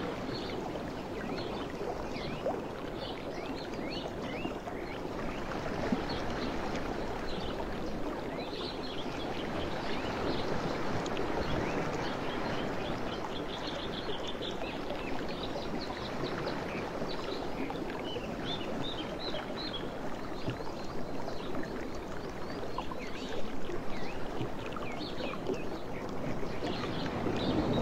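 Outdoor evening ambience: a steady rushing noise with many short, high bird chirps and twitters scattered through it.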